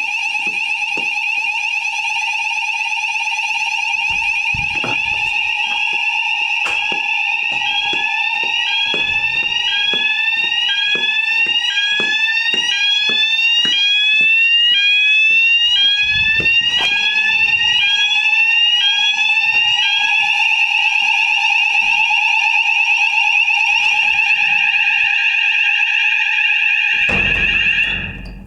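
Building fire alarm sounders going off for a weekly system test: a steady electronic tone. From about five seconds in until about twenty seconds it is joined by a second sounder's repeating rising sweeps, roughly one and a half a second. Near the end the alarm cuts off suddenly.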